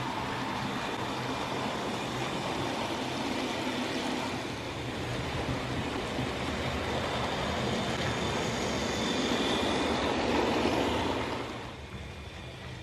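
Lima OO gauge model of an LMS Crab 2-6-0 running on track: the steady whirr of its tender-drive motor, freshly serviced, with the noise of its wheels on the rails. It grows louder as the model comes close, then falls away sharply near the end.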